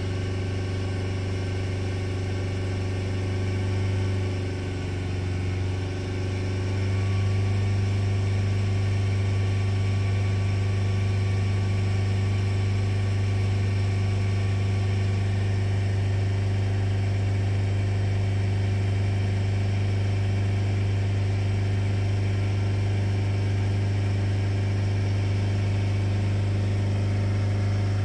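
Vauxhall Vivaro van's diesel engine held steady at about 3,000 rpm, heard from inside the cab as an even drone. It dips briefly about five seconds in and settles slightly louder from about seven seconds. The revs are held up to burn injected DPF cleaning fluid through a blocked diesel particulate filter, whose pressure is coming down.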